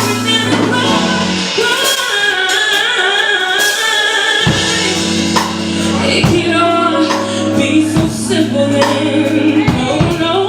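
Music: a singer over a band, with a wavering, drawn-out vocal line above sustained bass notes.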